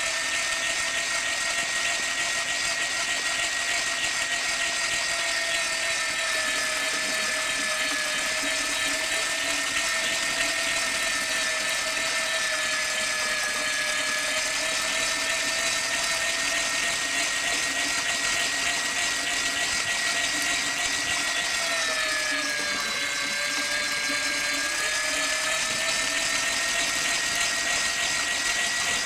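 Small DC toy motor whining steadily as it drives a belt to a miniature water pump. Its pitch sags briefly about 22 seconds in, then comes back up.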